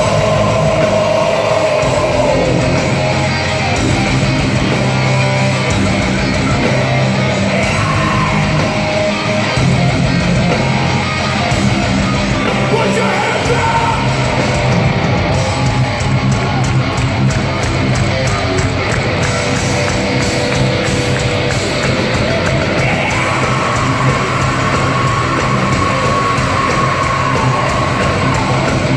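Metalcore band playing live in an arena: distorted electric guitars, bass and drums with yelled vocals, loud and echoing through the hall.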